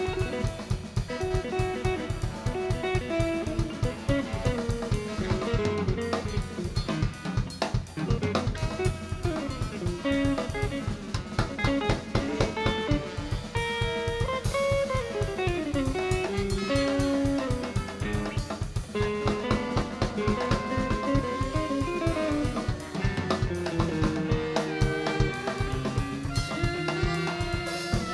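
Live jazz ensemble playing, with a busy drum kit prominent under saxophones, electric guitar, bass and keyboard.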